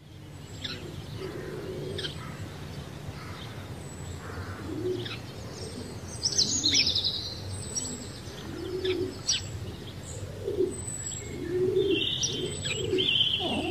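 Outdoor birdsong: small birds chirping and trilling, with a dove cooing in repeated low phrases that become frequent from about halfway through, over a steady low background hum.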